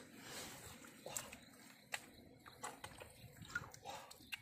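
Faint, scattered drips and small splashes of muddy water as hands move in and above a shallow water-filled pit.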